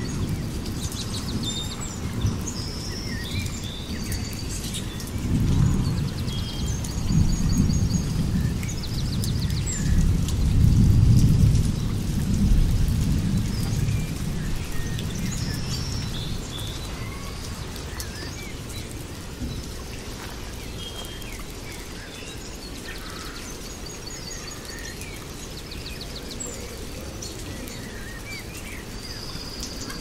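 Rain falling steadily with a long roll of thunder that builds about five seconds in and dies away by about fourteen seconds, while songbirds chirp and trill throughout.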